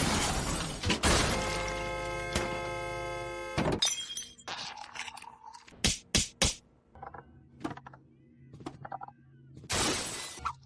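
A string of short, unrelated sound effects: a loud crash with a breaking sound at the start, a steady ringing tone of several pitches for about two seconds, then a few sharp knocks and a burst of noise near the end.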